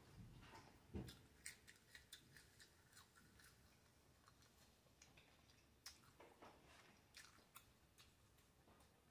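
Faint chewing of French fries with the mouth closed: scattered soft, moist mouth clicks, clustered in the first couple of seconds and again a little after halfway.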